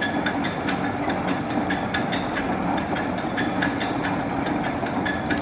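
Large Niles engine lathe running at slow spindle speed, about 35 RPM, with a steady gear-driven hum and a repeating click roughly twice a second.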